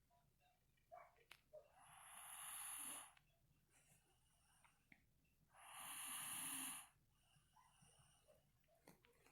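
Snoring: two long, rasping breaths of about a second and a half each, some three and a half seconds apart, with a few faint clicks in between.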